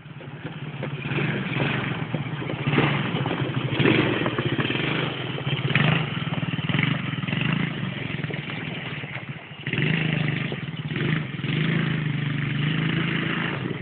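Small youth ATV's engine running as the quad is ridden, the sound rising and falling with the throttle. It eases off briefly about nine and a half seconds in, then picks back up.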